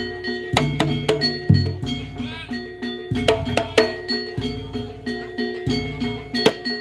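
Javanese gamelan music for a jaranan dance: a steady rhythm of struck metallophone and gong notes that ring on, with a deep low stroke about once a second.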